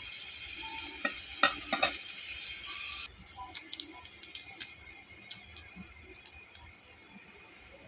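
Food sizzling in a hot pan while a utensil stirs it, with a few loud knocks of the utensil against the pan between about one and two seconds in. The sizzle drops off sharply about three seconds in, leaving scattered clicks of the utensil on the pan.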